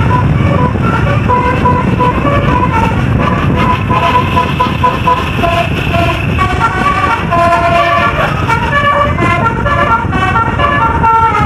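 A bus's 'telolet basuri' multi-tone air horn playing a quick melody of short stepped notes, over a steady low rumble.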